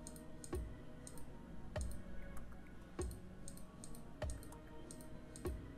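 Quiet background music: a slow, even beat of soft low thuds with a click on top, about one every 1.25 seconds, over faint held tones.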